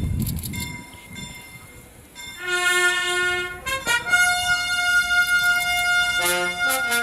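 Herald trumpet ensemble playing a fanfare: soft held high notes at first, then from about two and a half seconds loud sustained brass chords, with a few sharp drum strikes.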